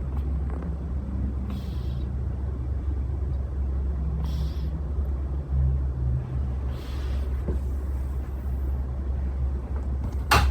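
A cat making a loud, steady low rumble close to the microphone, with a soft breathy hiss every two to three seconds and a sudden sharp sound near the end.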